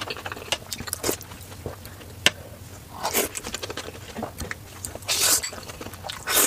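Close-miked eating sounds: wet chewing and mouth clicks on a mouthful of steamed momo dumpling, then spicy noodles slurped from a bowl, with a longer slurp about five seconds in.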